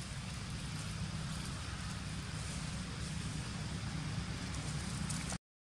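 Steady low rumble with an even hiss over it, which cuts off suddenly near the end.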